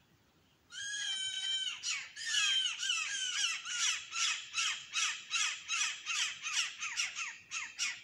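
A bird calling loudly: a short held call begins just under a second in, then turns into a fast run of falling notes, about two or three a second, that stops right at the end.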